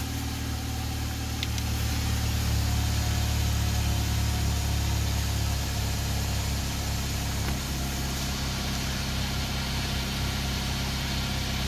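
2004 Chevrolet Cavalier's four-cylinder engine idling steadily, heard from underneath the car.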